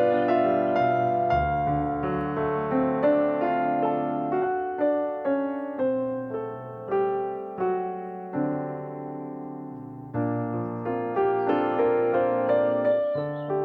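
Background piano-like keyboard music: a slow melody of separate struck notes over held bass notes, with one long chord fading away about eight seconds in before playing picks up again about two seconds later.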